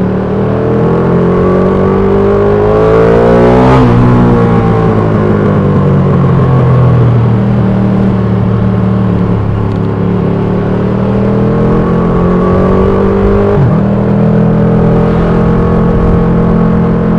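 2020 Ducati Panigale V2's 955 cc V-twin engine running under riding load. Its pitch rises for about four seconds, then falls away. Near the end it drops suddenly once and settles at a steady note.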